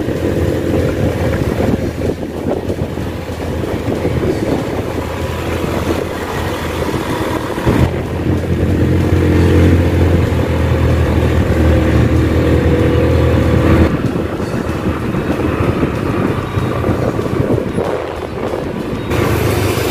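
Motorcycle engine running while riding along a road, with wind and road noise; the engine rumble grows louder for several seconds in the middle, then eases.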